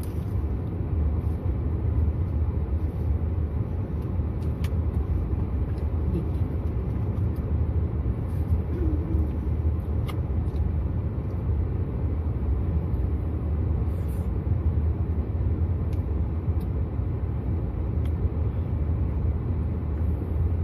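Steady low rumble of a car engine running, heard from inside the cabin, with a few faint clicks.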